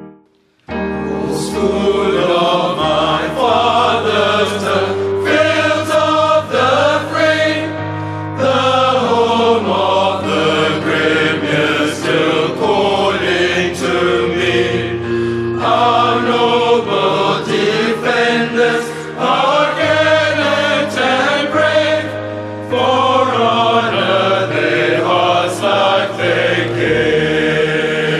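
Background music: a choir singing over sustained low bass notes, with brief pauses between phrases.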